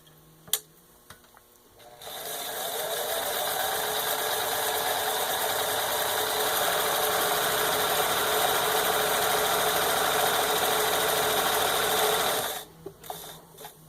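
Necchi 535FA zigzag sewing machine running steadily as it sews its built-in multi-stitch zigzag pattern. It starts about two seconds in and stops abruptly about ten seconds later, with a few light clicks after.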